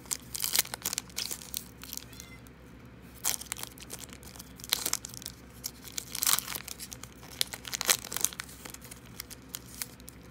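A trading card pack's plastic wrapper being torn open and crinkled, with the cards rustling, in several short bursts of crackling.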